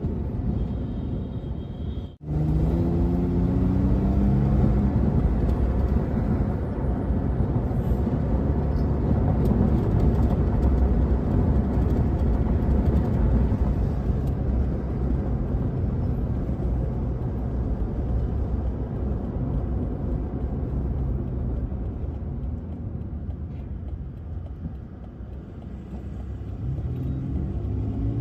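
Car driving along a road, heard from inside the cabin: steady engine and tyre rumble. The sound cuts out briefly about two seconds in. Just after that the engine note climbs for a few seconds as the car picks up speed, and it climbs again near the end.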